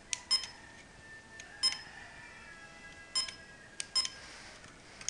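Password being keyed in on an electronic door lock's keypad: about six separate key presses at an uneven pace, each a short click with a brief high beep.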